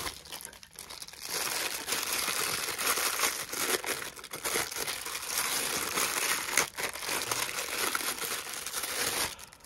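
Plastic packaging crinkling and rustling as hands unwrap bubble wrap and a clear plastic bag from a metal microphone desk clamp. The crinkling is irregular and continuous, and stops shortly before the end.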